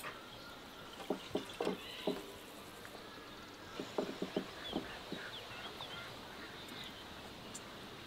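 Soft thuds and pats of hands working bread dough, pulling portions from an aluminium bowl and setting dough balls down on a floured aluminium tray: a quick run of four about a second in and another run around four seconds in. Birds chirp faintly in the background.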